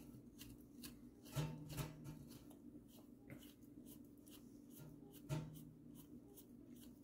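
Faint scratchy ticks and scrapes of a flathead screwdriver turning the air screw out of a Rotax Max FR125 carburettor's aluminium body, with two brief soft low sounds about a second and a half in and again a little past five seconds.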